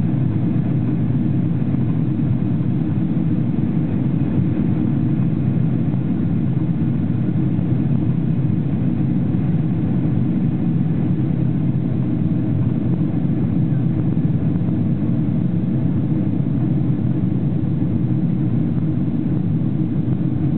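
Steady low rumble inside the passenger cabin of a Boeing 777-300ER in flight, from its GE90-115B engines and the airflow over the fuselage.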